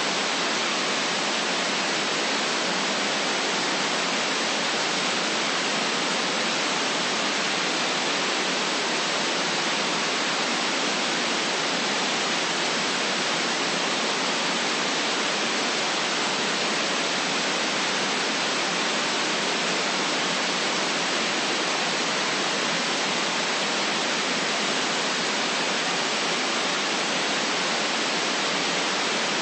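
Steady static hiss: an even, unchanging rushing noise with little bass, holding at one level throughout.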